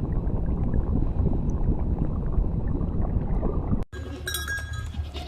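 A dense low noise with faint crackling, cut off abruptly about four seconds in. Then small metal bells, of the kind hung on sheep or goats, clink and ring repeatedly.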